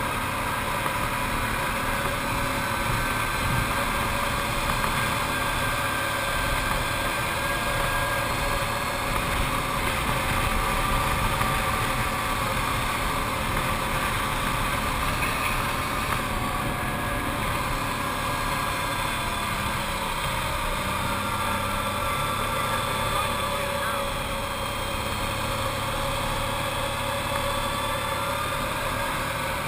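Arctic Cat TRV 1000 ATV's V-twin engine running steadily while riding uphill, its pitch drifting gently up and down with throttle, over a low rumble.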